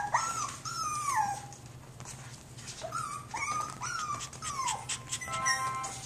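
Jack Russell Terrier puppy whimpering: high, thin calls that rise and then fall in pitch, in two bouts of several calls each. Music with held notes comes in near the end.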